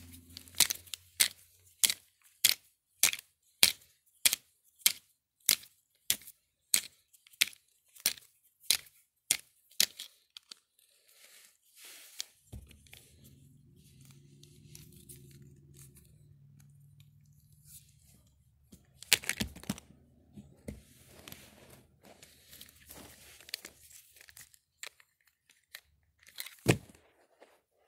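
Plastic wrestling action figures being knocked together by hand: sharp clacks about twice a second for the first ten seconds. After that comes rubbing and handling noise close to the phone's microphone, a few scattered knocks, and one loud knock near the end.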